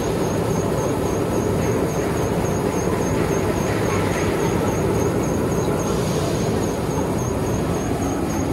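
Machinery of a potato washing and conveying line running: a steady, dense mechanical noise from motors, the washer and the conveyor belt.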